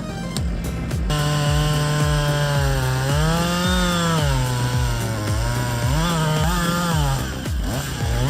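Chainsaw engine running and revving, its pitch rising and falling several times as it cuts, over background music with a steady thumping beat.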